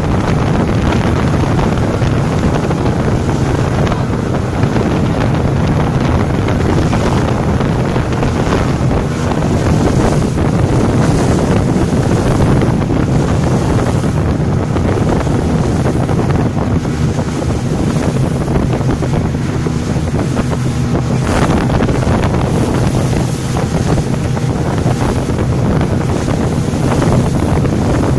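Motorboat running fast on open sea: a steady engine drone under the rush of its wake and spray, with wind buffeting the microphone.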